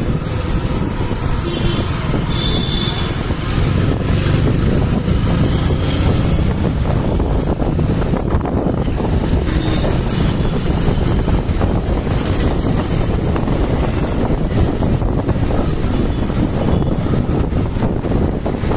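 Motorcycle riding through city traffic: a steady, loud rush of wind on the microphone over the engine and the road noise of the surrounding vehicles.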